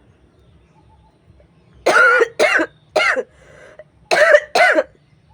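A woman coughing hard on purpose: five loud coughs in two runs, three close together and then two more about a second later.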